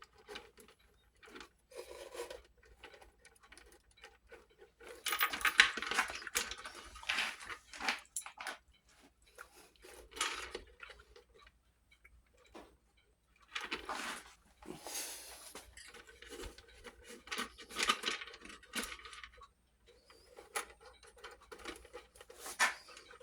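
Small metal parts of a wall clock's movement being handled and fitted back into place: irregular light clinks, scrapes and rustles, coming in several clusters.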